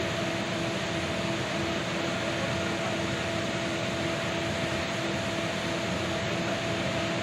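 Steady machine-like hiss with a faint, even hum, like fan noise.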